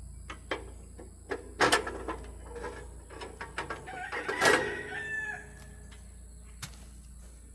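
Steel band-saw blade being worked off a sawmill's wheels: a run of metal knocks and scrapes, with two loud clangs about a second and a half apart, the second ringing on briefly.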